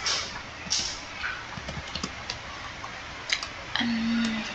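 Computer keyboard keys and mouse buttons being pressed: a scattered series of sharp clicks, with a brief low steady hum near the end.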